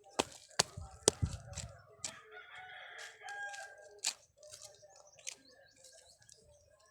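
A rooster crowing once, a held call about two seconds in, among several sharp knocks, the loudest in the first second.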